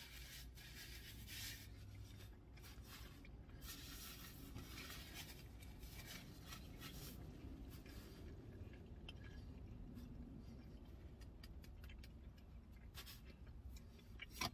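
Quiet rustling and rubbing of a paper napkin as a mouth is wiped, with soft chewing and handling of the food, in short scattered bursts over a low steady rumble.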